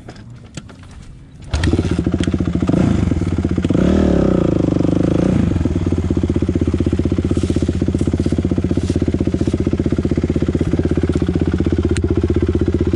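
Kawasaki KX450F dirt bike's single-cylinder four-stroke engine running close up, cutting in abruptly about a second and a half in. It revs up and back down around four to five seconds in, then pulls steadily with a rapid firing beat.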